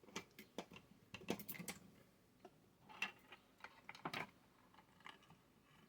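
Irregular light clicks and taps of small tools and parts being handled on a workbench, with a quick cluster about a second in and single taps around three and four seconds in.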